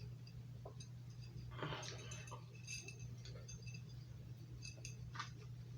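Faint scattered clinks and taps from a heavy metal medallion being handled, a few with a brief high ring, over a steady low hum.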